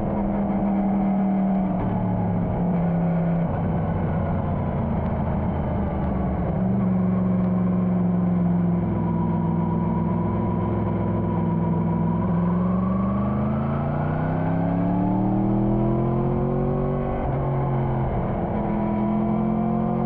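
Motorcycle engine running under way, holding a roughly even pitch with small shifts, then climbing steadily as the bike accelerates from about twelve seconds in, and dropping sharply near seventeen seconds with a gear change.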